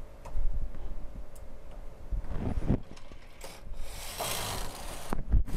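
Single-bed knitting machine carriage pushed along the needle bed to knit a row: a mechanical rasping run that builds from about halfway in, after a few light clicks, with a knock just before the end.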